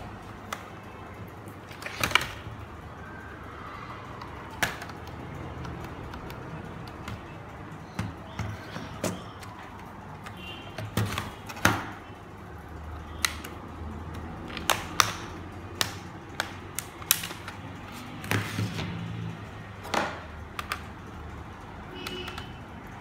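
Plastic case of a Dell Latitude laptop being handled on a wooden table: irregular clicks and knocks as it is turned over and its battery is worked out of the bay.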